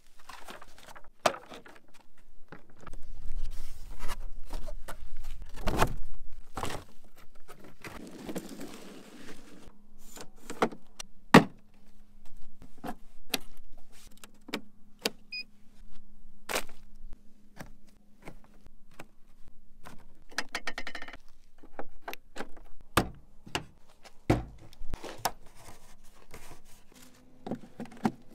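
A string of clicks, knocks and clatter from portable solar panels and a portable power station being handled and connected, with a faint steady hum through the second half.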